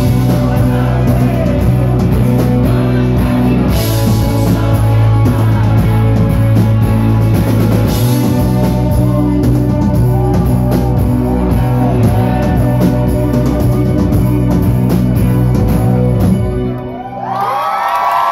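Live rock band playing loud, with electric guitars, bass, drum kit and some singing. The band stops about sixteen and a half seconds in, and the crowd starts cheering and whistling near the end.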